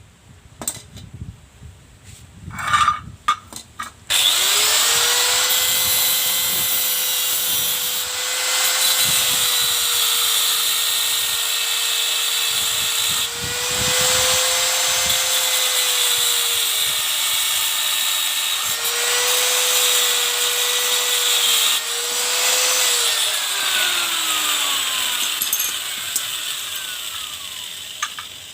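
An electric power tool motor starts abruptly and runs at a steady high whine, dipping slightly in pitch now and then as if under load, then switches off about twenty seconds later and winds down in a falling whine. A few clicks and knocks come before it starts.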